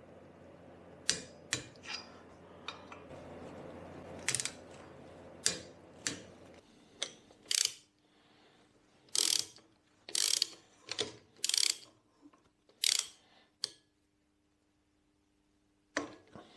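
Hand ratchet clicking in a dozen or so short bursts, stroke after stroke, as nuts on a Lambretta SST265 engine's cylinder are tightened down.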